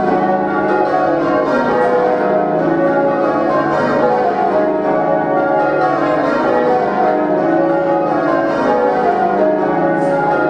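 The Swan Bells' ring of tower bells being change-rung by bellringers: many bells striking in quick succession, their tones overlapping in a continuous, even peal.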